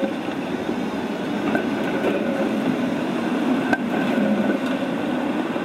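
Tram running along street track, a steady rolling rumble with faint whining tones, and one sharp click about three and a half seconds in.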